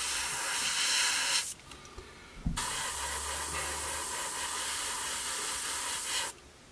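Airbrush spraying thinned enamel paint: a steady hiss of air that cuts off about one and a half seconds in, comes back a second later with a click, and stops again near the end as the trigger is released.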